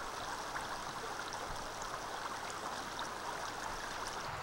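Steady rushing noise at an even level, with faint scattered ticks.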